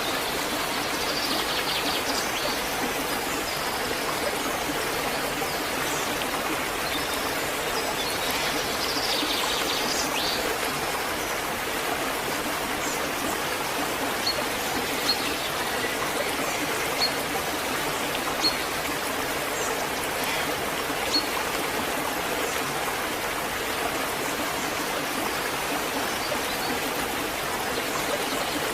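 Waterfall rushing steadily, a constant wash of falling water. A few short high-pitched chirps sound over it, several of them near the middle.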